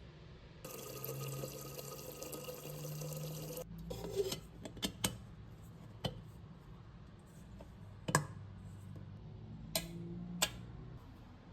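Water running from a kitchen tap for about three seconds, then cut off abruptly, followed by several sharp clinks and knocks as things are handled.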